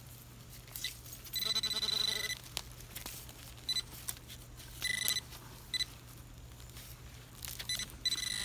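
Handheld metal-detecting pinpointer probe giving a high electronic tone in bursts as it is pushed through a clump of dug soil: about a second-long tone near the start, then short beeps, with a lower warbling tone under the first burst. The tone signals a metal target, a coin, inside the clump.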